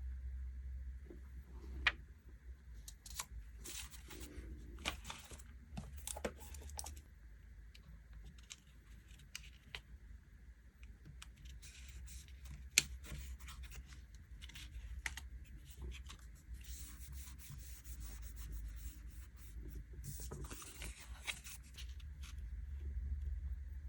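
Stickers being peeled from their sheets and pressed onto a diary page: short rustling peels and rubs, with scattered light taps and clicks of small items on the desk, over a low steady hum.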